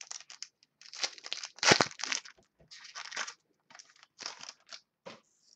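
Trading cards being handled at close range: a run of irregular rustles, scrapes and crinkles, with one louder scrape just under two seconds in.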